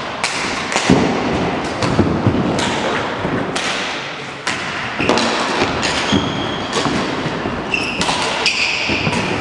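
Irregular thuds and knocks from play in an indoor sports hall, echoing, several a second at times. A few short high squeaks come near the end.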